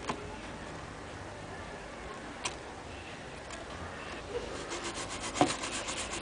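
A brush scrubbing a printed circuit board in quick, rapid back-and-forth strokes, starting about two-thirds of the way in, with one sharp knock among the strokes. Before that, only a few faint clicks.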